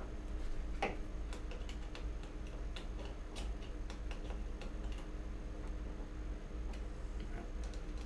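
Irregular light metal clicks and scrapes as the flathead screwdriver blade of a Stanley hatchet multi-tool works at the screws of a wall light switch, loosening them. There is one sharper scrape about a second in, over a steady low hum.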